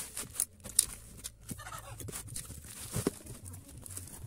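Bubble wrap and a cardboard box being handled and pulled open: irregular crinkles, rustles and small knocks.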